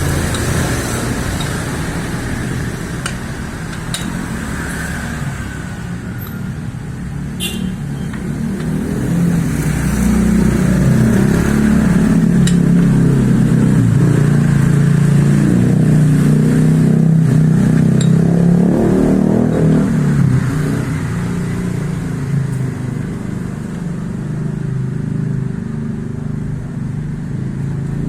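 Motorcycle engine running. It picks up speed and gets louder about a third of the way in, holds there for roughly ten seconds, then eases back toward a lower, steadier run.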